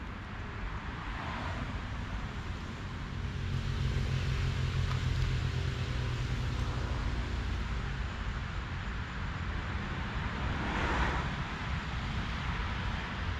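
Road traffic going by: a steady low engine drone for several seconds in the middle, and the rush of vehicles passing about a second in and again near the end.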